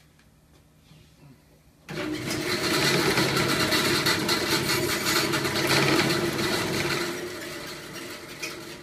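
A bandsaw is switched on about two seconds in and runs with a steady motor hum while it cuts a marimba mallet's dowel and polyurethane head. After about five seconds it is switched off and winds down, fading out.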